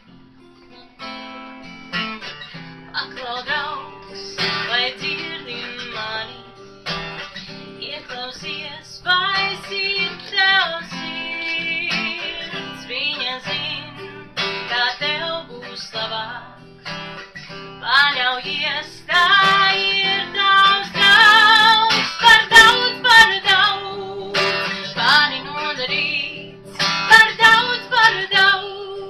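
A woman singing while playing an acoustic guitar; the voice comes in about a second in and grows louder in the second half.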